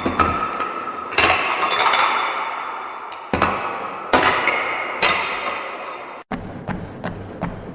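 Metal gym equipment clanking: four heavy metallic strikes, each one ringing on. About six seconds in the sound cuts to a quicker run of light taps, roughly four a second.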